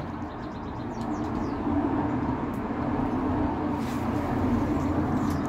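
A steady low machine hum, with a faint bird call about four seconds in.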